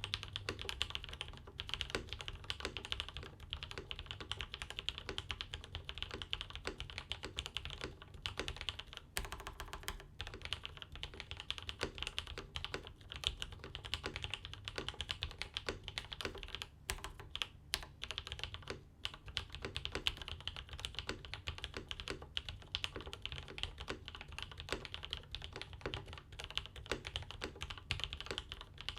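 Steady, continuous typing on a mechanical keyboard with vintage Cherry MX Black linear switches (Cherry G80-3000 pulls), lubed with 205g0 and fitted with TX 0.125 switch films, under GMK doubleshot keycaps in a RAMA KARA board.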